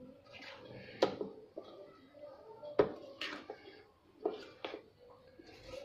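Steel spoon stirring batter in a steel bowl, with a handful of light, irregular clinks where the spoon taps against the bowl.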